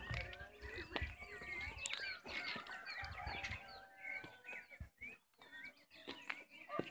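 Chickens clucking among many short bird chirps, the calls overlapping throughout, with a few low rumbles in the first half.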